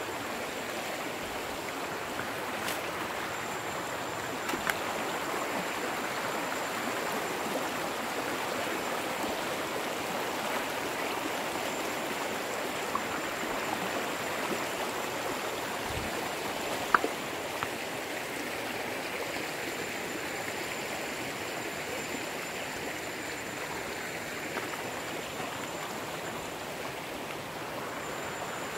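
Shallow rocky mountain stream rushing over stones in a steady wash of water, with a few brief sharp knocks, the loudest about seventeen seconds in.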